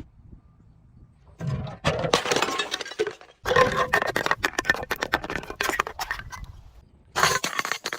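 Glass and other crunchy objects being crushed: dense crackling and crunching in three bouts, starting about a second and a half in, with short breaks at about three and a half seconds and about seven seconds.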